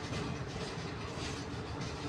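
TEM2 diesel shunting locomotive on the move during shunting, a steady rumble of the engine and of wheels on the rails.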